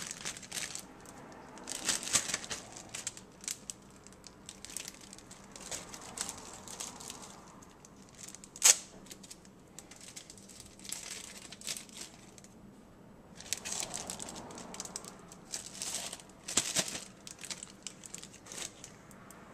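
Thin plastic bag crinkling in irregular bursts as vegetable scraps are handled and gathered into it, with one sharp tap a little before halfway.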